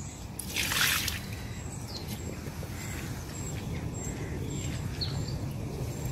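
Water tipped from a bucket splashes onto a carp on an unhooking mat about half a second in, then a small bird chirps faintly and repeatedly over a steady low rumble.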